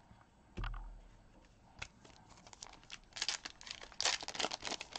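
A soft thump, then from about three seconds in a foil baseball card pack wrapper is torn open and crinkles in quick, irregular crackles.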